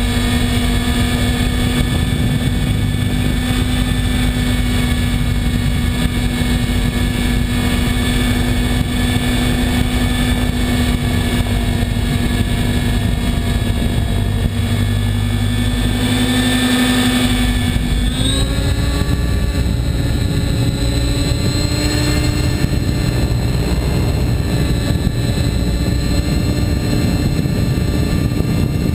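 Onboard sound of a Compass 7HV electric RC helicopter in flight: a steady high drivetrain whine over the rush of the rotor blades and wind. About eighteen seconds in the whine shifts and rises in pitch, then holds steady.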